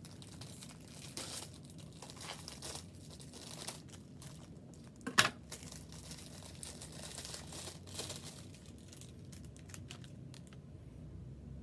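A paper towel and the sliders' packaging crinkling, rustling and tearing as the frozen sliders are wrapped for the microwave, with one sharper, louder crackle about five seconds in. The rustling dies away near the end.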